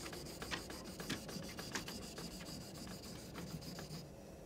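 Scandi-grind knife bevel scraped back and forth over an oiled Washita Arkansas sharpening stone in repeated gritty strokes, which die away about four seconds in.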